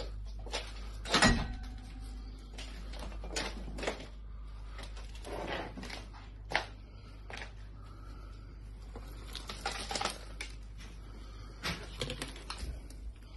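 Handling noise in a small room: scattered knocks, bumps and rustling as things are moved about, the loudest knock about a second in.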